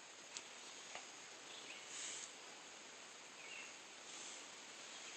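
Faint, steady outdoor background hiss with a few soft clicks and faint short chirps.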